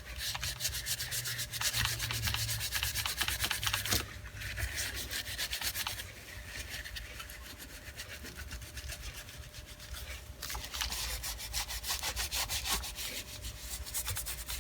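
A cleaning wipe being scrubbed back and forth over the body of a vintage electric drill: a fast, continuous rubbing and scraping, easing off for a few seconds midway before picking up again.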